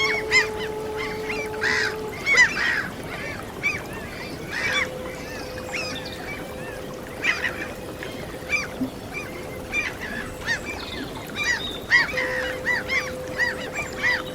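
A flock of gulls calling over and over, many short arched cries overlapping. Beneath them run long held musical notes and a steady wash of noise that fits sea waves.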